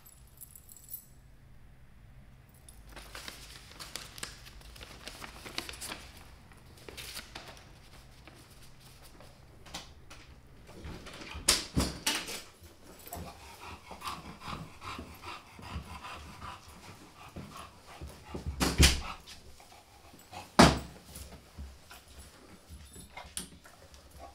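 A dog whimpering and whining. A few sharp knocks come through it, two about halfway through and two louder ones later on.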